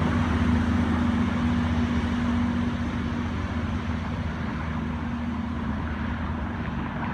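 Hunter railcar set, a diesel multiple unit, pulling away from the station: its diesel engines drone at a steady pitch and slowly fade as the train moves off.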